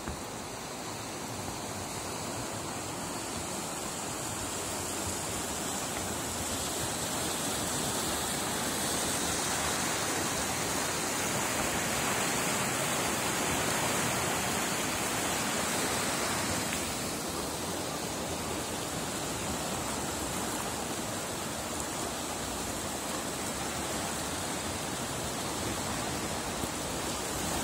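Steady rushing of a swollen river in flood, swelling louder for several seconds in the middle and easing off again.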